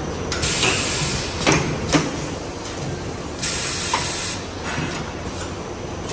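Automatic air fryer paper liner forming machine running: a steady mechanical hum, two bursts of hiss about a second long each, and a few sharp clacks from the forming press in between.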